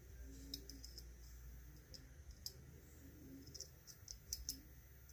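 Faint, scattered clicks of tiny metal lock parts: key pins and wafers being worked out of a disassembled ISEO R6 dimple lock cylinder.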